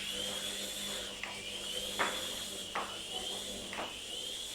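Two-channel toy helicopter's small electric rotor motor whining, its pitch rising and falling as the throttle changes, with four sharp taps.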